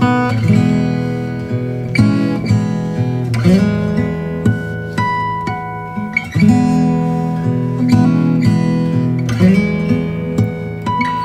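Background music played on acoustic guitar, with plucked notes that ring on and change chord every second or so.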